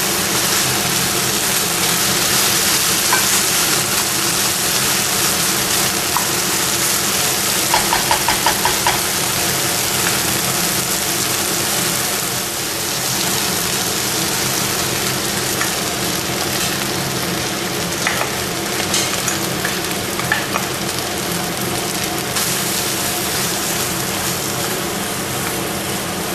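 Chicken cooking in a frying pan, sizzling steadily as it is stirred, over a steady low hum. A quick run of light taps comes about eight seconds in, with a few scattered clicks later.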